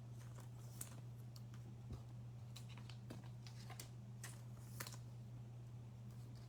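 Faint scattered clicks and light handling sounds of trading cards being sorted, over a steady low electrical hum.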